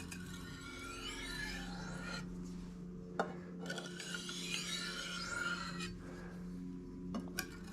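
Knife blade being stroked on an oiled fine India honing stone: a few long scraping strokes with short pauses between them, and a couple of light clicks.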